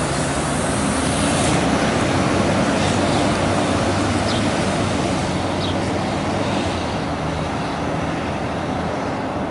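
Fire engine's diesel engine running as it drives away up the street, a steady rumble mixed with road noise.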